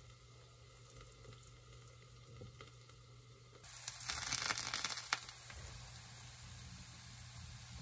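Kimchi fried rice with egg and melted cheese sizzling in a frying pan, faint and muffled at first, then about three and a half seconds in it turns suddenly louder and hissier with a few sharp crackles, with the pan uncovered.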